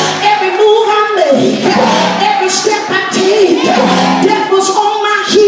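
A woman singing into a microphone, her voice amplified through a sound system, with long held and sliding notes.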